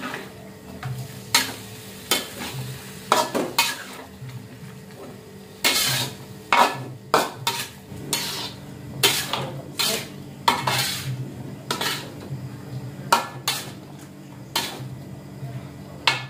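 Long metal spatula scraping and clanking against a steel wok as food is stir-fried, the knocks coming irregularly about once a second, with food sizzling in the pan. A steady low hum runs underneath.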